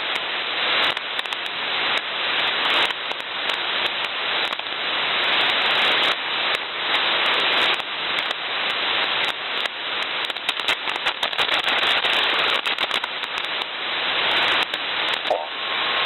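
Shortwave receiver audio: steady hiss of HF band noise, broken by frequent crackles and clicks of static, as the Winradio Excalibur Pro SDR is tuned across frequencies with no signal on them. The hiss is cut off sharply above the receiver's audio filter.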